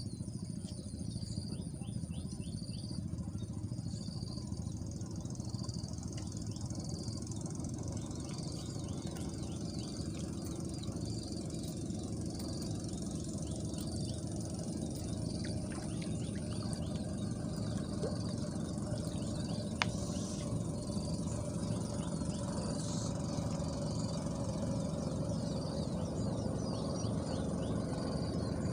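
Insects calling: a steady high-pitched trill with a short chirp repeating about every 0.7 s, over a continuous low rumble.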